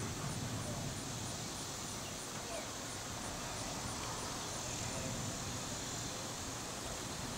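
Steady rush of wind from an approaching severe thunderstorm, with a low, uneven rumble of wind buffeting the microphone.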